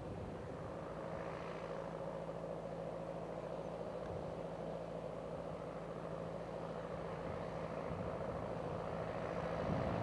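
Claas Arion 410 tractor's four-cylinder diesel engine running steadily under load while pulling a plough, getting a little louder near the end as the tractor comes closer.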